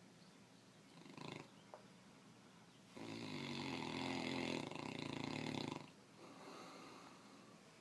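Heavy snoring: a short snort about a second in, then a loud, rattling snore lasting nearly three seconds, followed by a softer breath.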